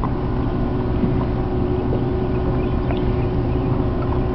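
Steady low drone of a marine engine, with a constant hum.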